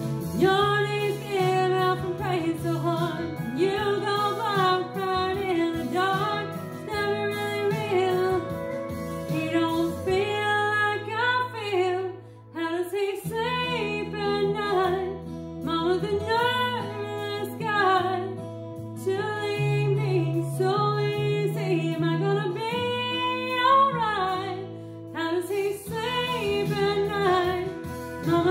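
A woman singing a slow country song over instrumental backing, with steady held low notes beneath the vocal line.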